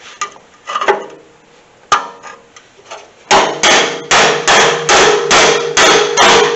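Hammer striking a seam buster wedge chisel between spot-welded steel panels of a radiator support, splitting the seam. After a few light knocks, the loud blows start about three seconds in at roughly two and a half a second, each leaving the sheet metal ringing.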